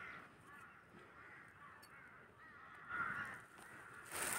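Faint crows cawing, a few harsh calls about a second in and again near three seconds in. A louder rush of noise begins near the end.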